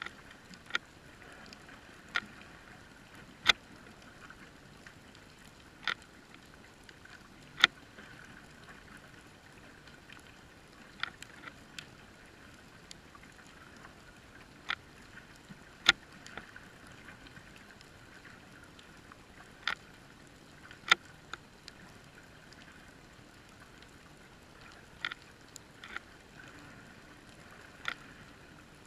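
Muffled underwater sound heard through a GoPro's waterproof housing: a faint steady hiss, broken by sharp clicks at irregular intervals of one to four seconds.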